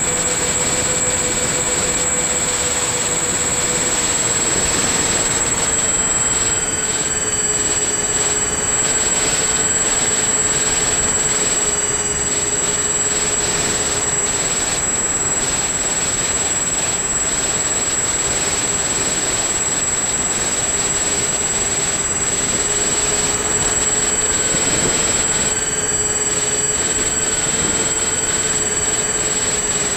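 Electric motor and propeller of a radio-controlled model plane, heard from its onboard camera: a steady whine that dips slightly in pitch a few seconds in and drifts back up later, with wind rushing over the microphone.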